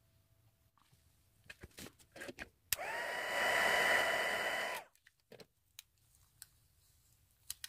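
A handheld UV resin-curing lamp switched on with a click, its small fan whirring up to a steady whine with a rush of air for about two seconds before cutting off. Light rustling and handling clicks from tissue and gloved hands come before it.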